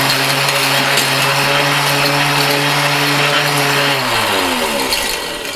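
Mighty Mill ore crusher running: a steady motor hum with a rushing, grinding noise over it, then the pitch falling as it spins down about four seconds in.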